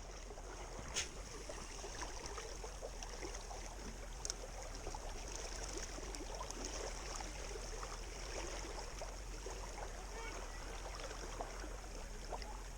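Faint lakeshore ambience: a steady soft hiss of outdoor background and water, with a few light clicks.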